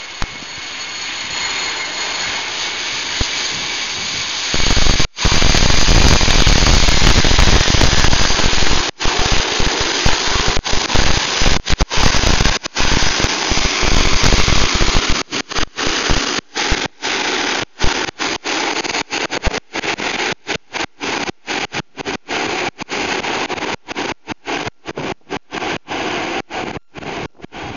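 Four-engine Airbus A340 jet landing: a steady engine whine at first, then a sudden loud rumble from about four and a half seconds in as it passes and touches down, easing off in the second half. The sound cuts out briefly many times, more and more often towards the end.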